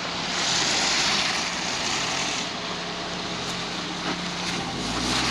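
A Suzuki Jimny's engine runs steadily under load while crawling up a rocky off-road track. A hissing rush of noise rides over it from about half a second to two and a half seconds in.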